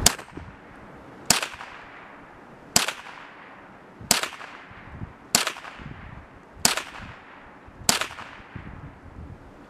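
ISSC MSR MK-22 semi-automatic .22LR rifle fired seven times in steady slow succession, about one shot every second and a quarter, each sharp crack trailed by a brief echo.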